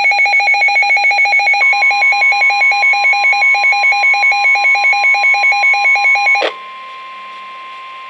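SAME weather alert radio sounding its warning alarm as a fast, loud pulsing beep. The steady 1050 Hz NOAA Weather Radio warning tone comes in under it about one and a half seconds in. The beeping stops about six and a half seconds in, leaving the steady tone alone, which marks a warning being broadcast.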